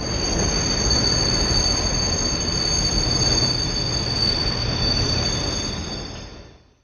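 Train rolling on the rails, a low rumble under a steady, high-pitched metallic squeal from the rails; the sound fades out near the end.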